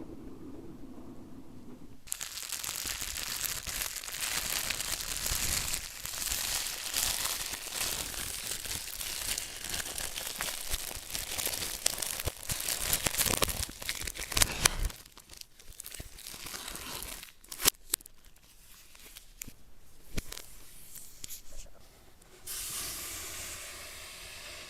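Packaging being handled, crinkling and tearing for several seconds, then a few scattered clicks and a short steady hiss near the end.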